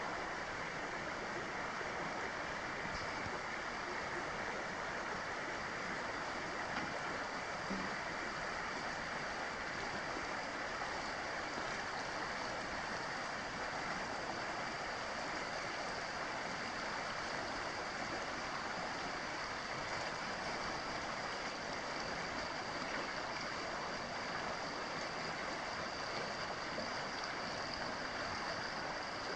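A creek running over rocks, a steady even rushing of water.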